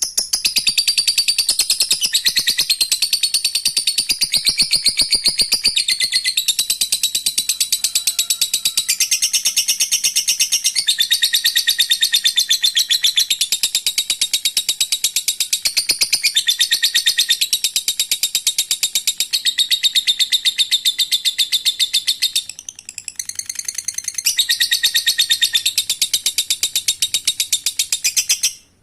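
Lovebird in long 'ngekek' song: a rapid, high-pitched chattering trill kept up almost without a break. It dips briefly a few seconds before the end, resumes, then cuts off.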